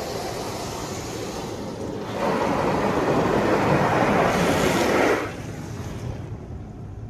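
Water spray from a PDQ LaserWash 360 PLUS touch-free car wash drumming on the car, heard from inside the cabin. It swells sharply about two seconds in, stays loud for about three seconds as the spray passes over, then falls back to a lower hiss.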